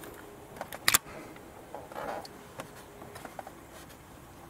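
Small clicks and rattles of pliers working a clip loose on a diesel common-rail injector's fittings. One sharp click about a second in is the loudest sound, with a brief rustle about two seconds in and lighter ticks.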